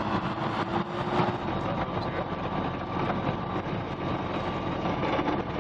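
Light aircraft's propeller engine running steadily as the plane taxis, heard from on board.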